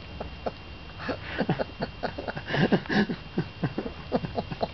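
Lhasa Apso dogs' paws and claws tapping and scrabbling on wooden deck boards as an adult and a puppy play-wrestle. The taps come quick and irregular, busiest and loudest about two to three seconds in.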